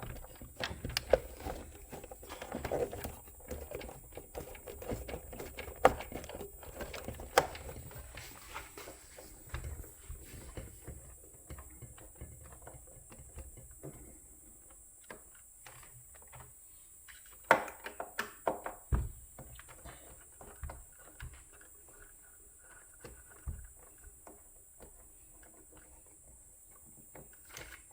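Scattered small clicks, taps and knocks of hands and a tool working on plastic and metal parts inside an opened Breville Barista Express espresso machine, freeing the micro switch. There is a busier run of handling sounds in the first ten seconds and a cluster of sharper clicks a little past halfway.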